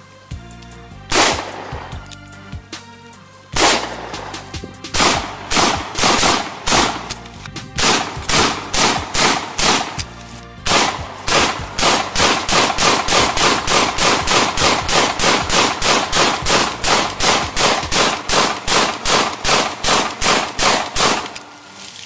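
Gunshots: a handgun fired twice, a couple of seconds apart, then an AK-47-style rifle fired rapidly in semi-automatic, first irregularly, then in a steady string of about three shots a second that stops about a second before the end. Background music runs faintly underneath.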